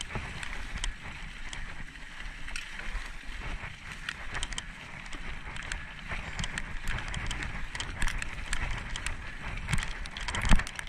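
Mountain bike rolling fast along a leaf-covered dirt trail: steady tyre noise with a low rumble, and frequent rattles and knocks from the bike over bumps, growing busier near the end with one loud bump just before it stops.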